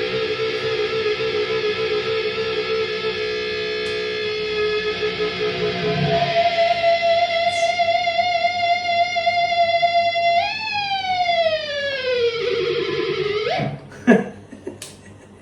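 Seven-string electric guitar with Floyd Rose tremolo and Sustainiac sustainer, holding notes for a long time: a held chord, then about six seconds in a single note ringing on with a slight vibrato. About ten seconds in the note is dived slowly downward with the tremolo bar and cut off near the end, followed by a few light clicks.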